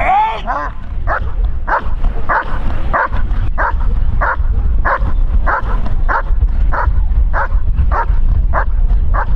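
German Shepherd dog barking in a steady, even rhythm, about one and a half barks a second, after a brief high whine at the start, over a steady low rumble.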